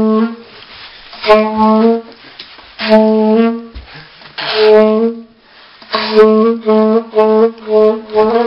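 A saxophone-like wind instrument playing long held notes, mostly on the same pitch, with gaps between them. About six seconds in it switches to a quick run of short repeated notes.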